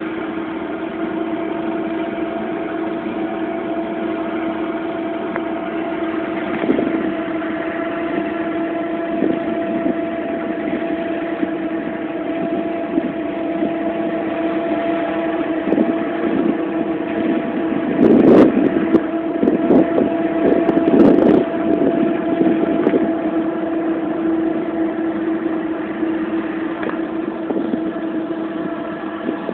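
A motor running at a steady speed with a constant hum. About two-thirds of the way through, a few seconds of clicks and knocks sound over it.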